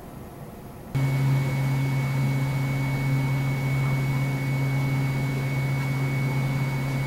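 A steady mechanical hum with a rushing noise under it, starting suddenly about a second in and holding at one pitch.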